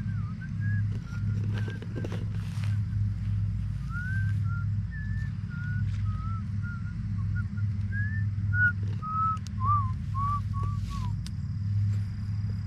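Short whistled notes wandering up and down in pitch, over a steady low hum.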